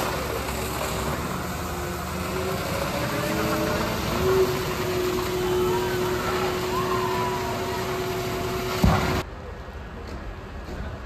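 A tractor-drawn slurry tanker's engine and pump run steadily under the loud rushing hiss of its manure jet and a police water cannon jet spraying at each other. There is a sharp bang near the end, then the sound cuts to quieter street noise.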